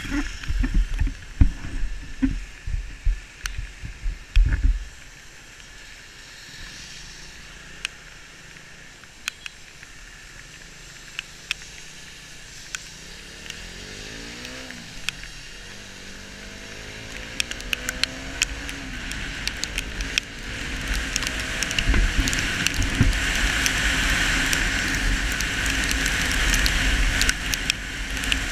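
KTM 200 Duke's single-cylinder engine rising and falling in pitch as the bike rides through heavy rain, under tyre and spray hiss from the wet road. Wind thumps on the microphone for the first few seconds, scattered ticks run through it, and the hiss grows louder in the last third.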